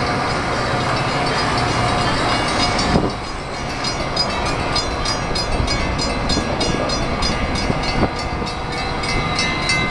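Metra commuter train's bilevel passenger coaches rolling past close by, their wheels rumbling and clattering on the rails. From about three seconds in, a rapid, regular high ticking runs over the rumble.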